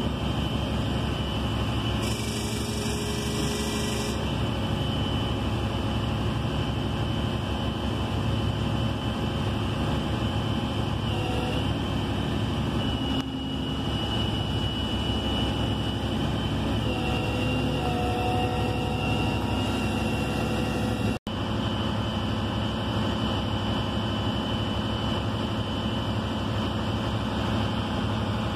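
Flatbed tow truck's engine running steadily, heard from inside the cab, with a faint high whine that shifts in pitch a few times. The sound drops out for an instant about two-thirds of the way through.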